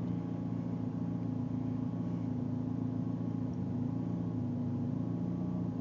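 Turbocharged Dodge Neon's four-cylinder engine running steadily, heard from inside the cabin, its pitch holding without any revving.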